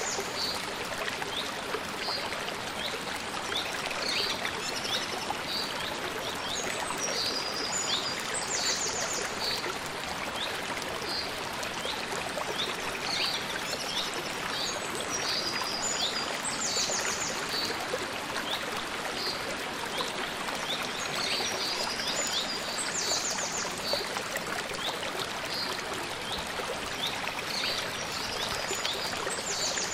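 A small mountain stream runs and splashes over rocks in a steady rush. A bird sings short, high, trilled phrases over it every few seconds.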